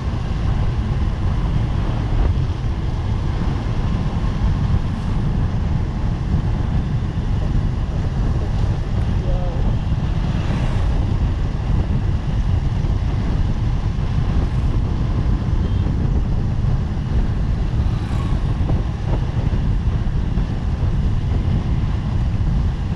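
Steady wind rumble on the microphone of a camera moving along a road, with vehicle and traffic noise beneath it.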